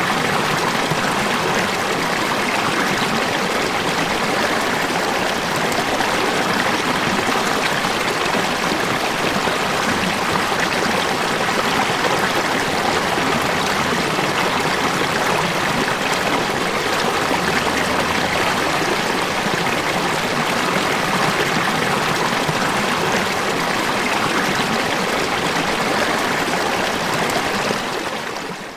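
Steady rush of falling water, fading down sharply near the end.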